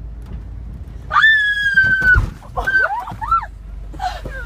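A person screaming: one high, held scream for about a second, then shorter wavering cries, over the low rumble of a car cabin.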